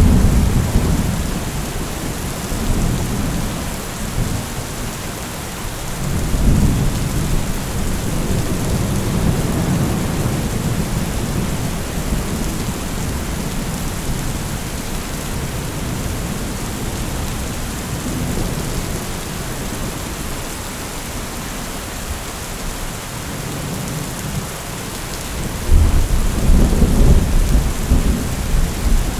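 Heavy rain falling steadily, with low rolling thunder rumbling at the start, again from about six seconds in, and loudest near the end.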